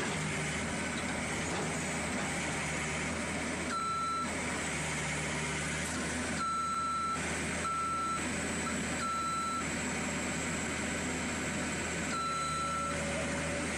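Skid steer loader's engine running steadily while its reversing alarm sounds a string of single-pitch beeps, each about half a second long; the beeping starts a few seconds in, pauses for a couple of seconds, then resumes near the end.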